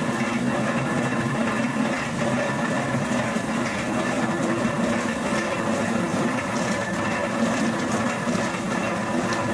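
Powered rotary oil mill (ganiga) running steadily: the gear drive and shaft give a constant mechanical hum while the rotating bowl and pestle grind oilseed cake for oil.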